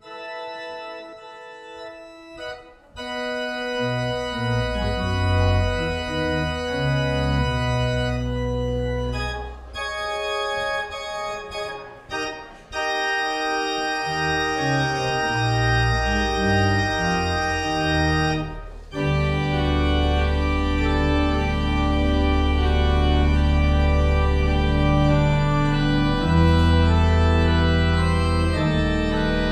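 Organ playing slow sustained chords over a low bass line, with brief breaks between phrases; fuller and steadier in the second half.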